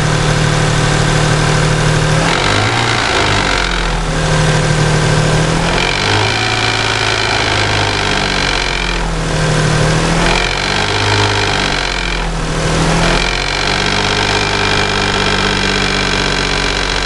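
Toyota 1MZ V6 engine revved up and let back down several times with the throttle. Under the valve cover it knocks at medium revs, though not at idle or at high revs.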